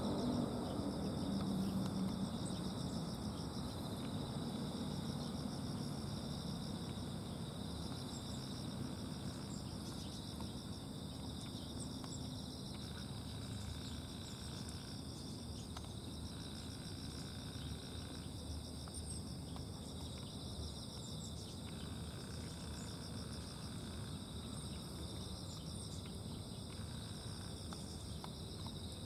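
Singing insects chirping steadily in the grass: several high, continuous trills layered together, over a low, steady background hum.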